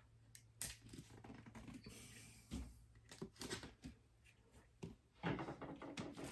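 Faint scattered clicks, taps and rustles of a cardboard collector's box being handled.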